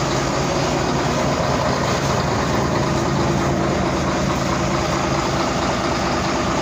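Large diesel engine idling steadily.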